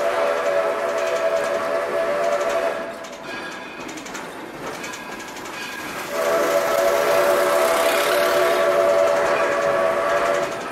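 Steam locomotive whistle blown in two long blasts, the first lasting about three seconds and the second about four and a half, with the train rolling along in between. Together with the short and long blasts that follow, this matches the long-long-short-long grade-crossing signal.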